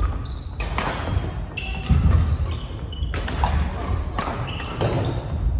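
Badminton rally: rackets hitting the shuttlecock with sharp smacks about a second apart, among shoes squeaking and feet thudding on a wooden gym floor, echoing in the hall.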